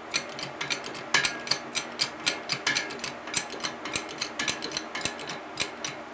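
Harbor Freight 20-ton hydraulic shop press being pumped against a transmission mainshaft: a run of sharp metallic clicks and clinks, several a second.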